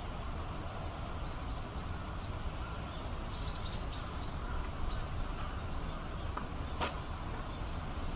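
Steady outdoor background noise with a run of faint, short, high chirps in the first half and a sharp click near the end.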